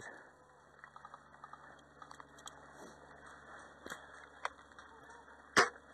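Light crackling and scattered small clicks, like body and gear shifting on dry grass, with one sharp, louder click about five and a half seconds in.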